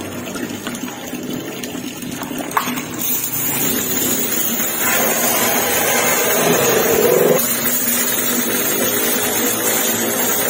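Water pump running while a hose pours water into a basin. For a couple of seconds midway the filling sound grows louder and rises in pitch as the basin fills. There is a single short click a couple of seconds in.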